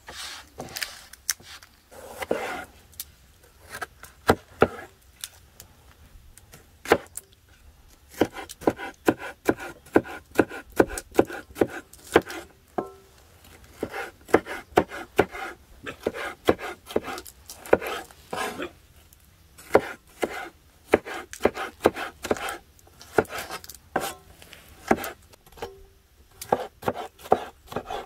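A large cleaver chopping green bell pepper on a wooden cutting board: sharp knocks of the blade on the wood, sparse at first, then in quick runs of several a second broken by short pauses.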